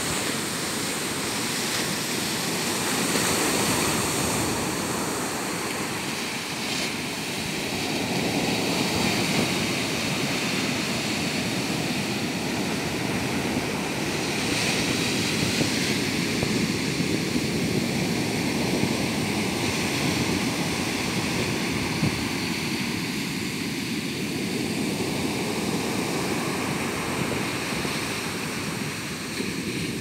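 Sea surf breaking and washing up a beach: a steady rush of waves that swells and eases every few seconds.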